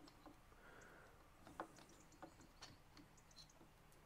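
Near silence with a few faint, irregular metal clicks from hand work on the valve spring and G-clamp spring compressor of a Citroen 2CV cylinder head.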